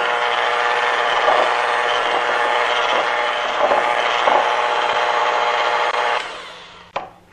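SmartPower electric hand mixer running steadily, its beaters blending molasses into creamed butter and sugar in a glass bowl. It winds down about six seconds in, followed by a few light clicks.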